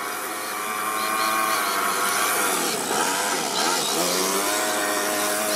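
The Toyan FS-S100 single-cylinder four-stroke overhead-cam engine of an RC car running as the car drives past. The engine note grows louder as the car approaches, dips and swings in pitch as it passes close about three seconds in, then holds steady.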